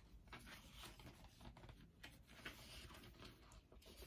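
Faint, scattered rustling and soft ticks of paper cross-stitch pattern sheets being handled and leafed through.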